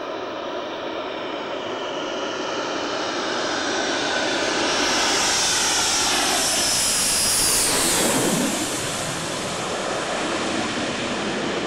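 A Panavia Tornado's twin RB199 jet engines whine as the jet comes in low and passes overhead, getting louder as it nears. At its loudest, about eight seconds in, the whine sweeps down in pitch as it goes by, then settles to a steady jet noise as it moves away.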